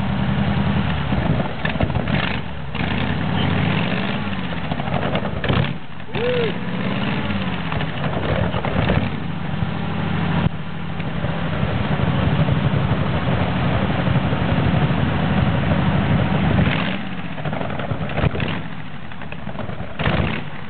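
Rat rod's engine running through short open exhaust stacks, revved up and down several times, with sharp exhaust bangs. Near the end a loud bang comes as the stacks shoot flames.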